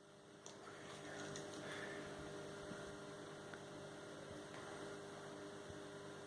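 Faint, steady electrical mains hum with a few small, faint ticks.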